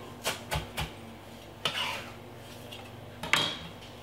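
Kitchen knife chopping coriander and parsley on a wooden cutting board: three quick chops, then two clattering knocks of knife and board, the louder one near the end.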